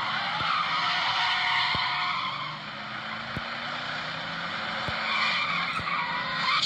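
Recorded sound effect of a car skidding with its tyres screeching, played back and cut off in the highs, with a few faint ticks.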